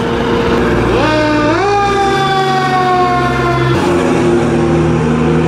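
Fire engine siren sounding over the truck's steady engine: its pitch rises sharply about a second in, then falls slowly and cuts off shortly before four seconds.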